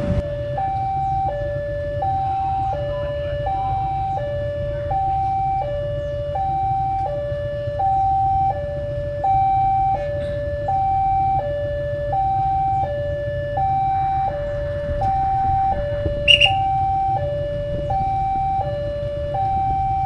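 Railway level-crossing warning alarm sounding a repeating two-tone high-low signal, each tone about 0.7 s long, over a low steady rumble. This is the crossing warning of an approaching train. A short sharp click about 16 seconds in.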